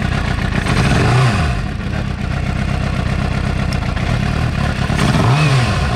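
2006 Suzuki GSX-R750's inline-four engine idling, revved briefly twice, about a second in and near the end. The bike has a rough idle that the owner suspects comes from a faulty coil pack misfiring.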